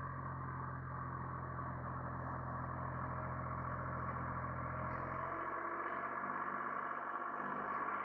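International Harvester 385 diesel tractor engine running steadily under load while it bush hogs a pasture. Its deepest tones drop away about five seconds in.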